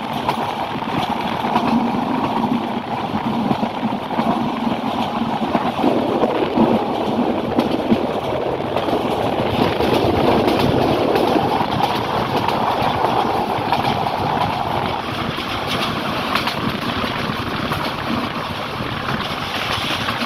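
A moving train heard from on board: the steady rumble and rattle of the carriage running along the track at speed.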